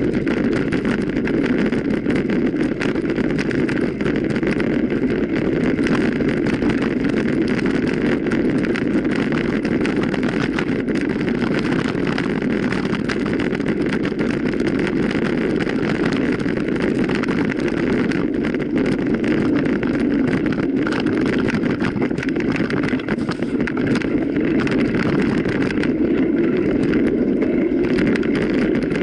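Mountain bike being ridden over rough ground: a steady rush of wind and tyre noise with constant small rattles and knocks.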